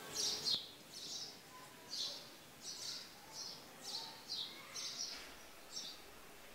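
A small bird chirping over and over, short high calls at about two a second, over faint outdoor hiss.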